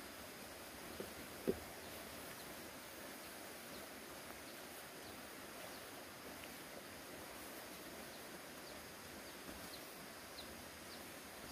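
Faint outdoor rural ambience: a steady hiss with scattered short, high chirps of birds or insects. A short knock about a second and a half in, with a softer one just before it.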